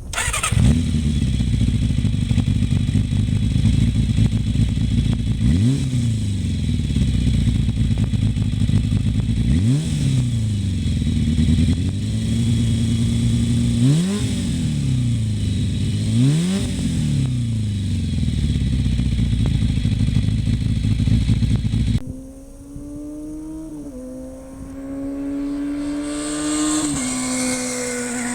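Kawasaki ZZR400 inline-four motorcycle engine with an LCI carbon slip-on silencer, starting up and idling, blipped sharply four times, each rev climbing and falling back to idle. About 22 seconds in the sound cuts to a quieter, steadier engine note that climbs and drops back in steps.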